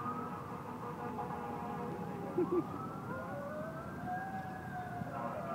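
Fire engine sirens wailing, their pitch slowly rising and falling, with two short louder blasts about two and a half seconds in.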